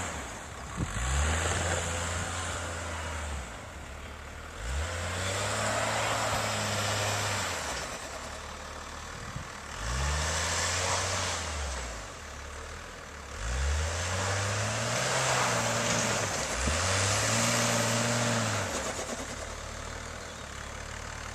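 Car engine revved about six times in a row, each rev rising, held for a couple of seconds and falling back, with a loud hiss and whine over each one: the sound of wheels spinning in snow.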